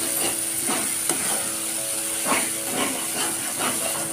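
Masala paste frying and sizzling in oil in a steel kadhai while a spatula stirs it, scraping the pan about twice a second.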